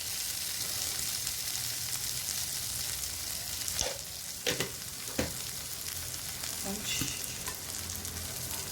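Cluster beans and wheat-dough pieces sizzling steadily in hot oil in a pan, with a few sharp knocks a few seconds in, as from a utensil against the pan.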